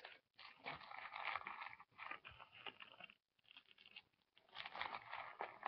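Faint, irregular crinkling and rustling of wrapper packaging being handled, with a couple of short pauses partway through.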